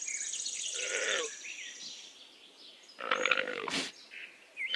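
Llama calling: a short call about a second in, then a louder, longer one about three seconds in. Small chirps and a fast high trill run in the background in the first half.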